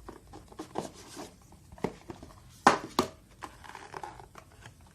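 Product packaging being opened and handled by hand: soft rustling and light taps, with two sharp clicks in quick succession a little past halfway.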